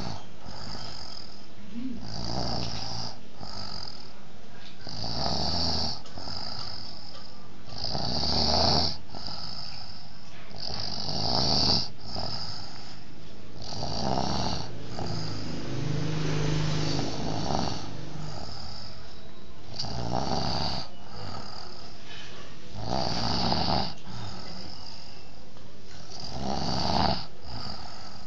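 A person snoring steadily, with a snore about every three seconds.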